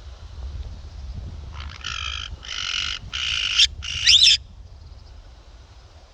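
Four harsh screeching calls from a free-flying pet bird, each about half a second long, in quick succession from about a second and a half in, the last with a whistling rise and fall. Wind rumbles on the microphone throughout.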